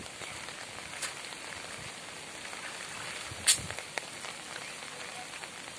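Steady hiss of light rain, with one sharp click about three and a half seconds in and a couple of fainter ticks near one and four seconds.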